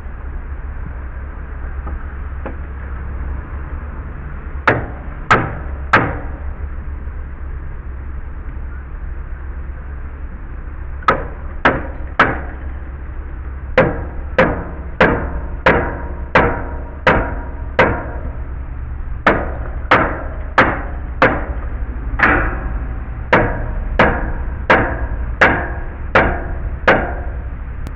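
Hammer blows, sharp and separate: three about five seconds in, then a long run of about twenty from about eleven seconds on, roughly one and a half to two a second with brief pauses.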